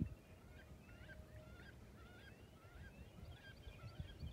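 Faint, distant birds calling: many short, overlapping calls, several a second. There is a soft thump at the very start.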